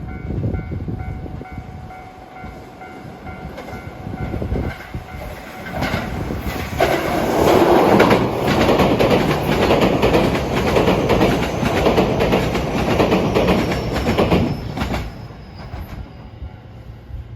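A train passing close by, its wheels clacking rapidly over the rail joints; it grows loud about six seconds in and fades away about fifteen seconds in.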